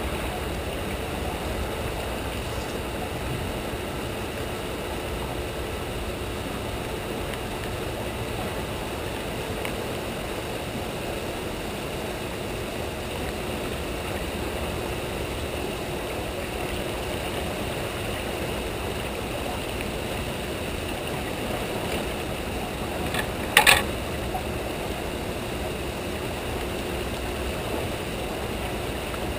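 Steady rush of turbulent tailwater churning below a hydroelectric dam. A brief loud clatter comes about 23 seconds in.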